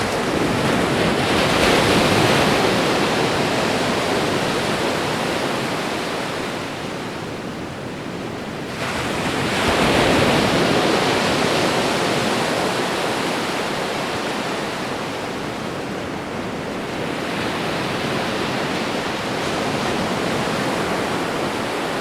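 Ocean waves breaking, a continuous wash of surf that swells to its loudest about two seconds in, surges again sharply around nine to ten seconds, and swells once more, more gently, near the end.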